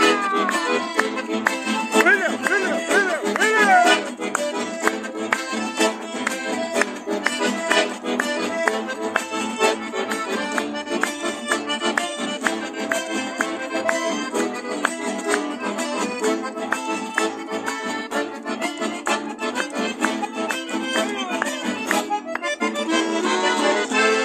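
An accordion playing a traditional tune, with two acoustic guitars strumming a steady rhythm along with it.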